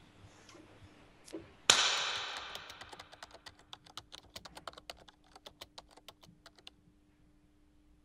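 A sudden loud crash about two seconds in, ringing and dying away over a second or so. Then rapid typing on a laptop keyboard, the keys clicking several times a second, which stops a little over a second before the end.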